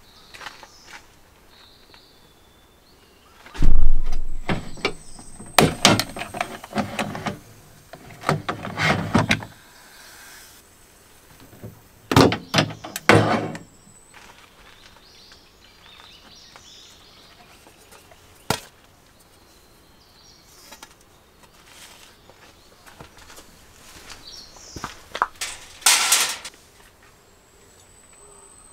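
Knocks and clatter from handling an electric sandwich maker: its lid opened on a toasted sandwich and its plug pulled from the socket, with loud thuds about four seconds in. A few short, high chirps, and more knocking near the end.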